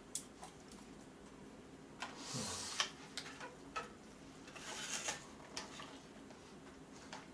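Faint rustling and crinkling of a cup noodle's foil-lined paper lid being peeled back, in two short bouts about two and five seconds in, with scattered small clicks and taps from handling the cup.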